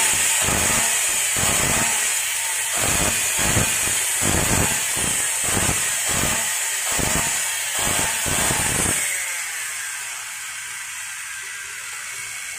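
Maktec MT580 circular saw's brushed motor running at full speed with an irregular crackling rattle, like something catching, while it sparks heavily at the commutator. A sparking and rattling like this is typical of a chipped or broken commutator on the armature. The rattle stops and the sound drops about nine seconds in.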